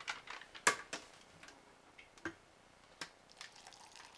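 Several sharp clicks and knocks from a plastic water pitcher and a spoon being handled at a stainless steel cup, the loudest a little under a second in, then water faintly starting to pour into the cup near the end.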